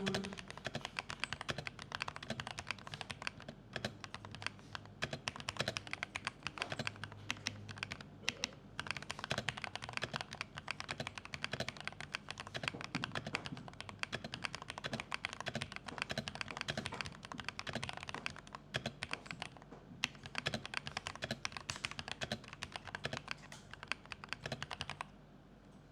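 Mechanical keyboard with Akko V5 Cream Yellow Pro switches being typed on steadily, a fast, continuous stream of keystrokes that stops about a second before the end.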